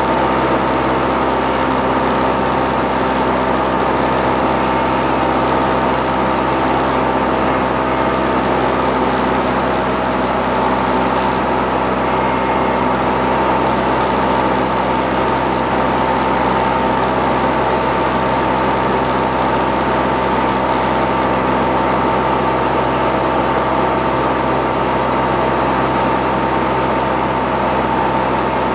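Morane-Saulnier MS.880B Rallye's flat-four piston engine and propeller droning steadily in cruise flight, heard inside the cabin with rushing air noise.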